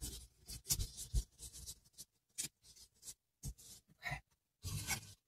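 Kitchen scissors snipping fresh basil leaves into a blender cup, an irregular run of short snips and leafy rustles.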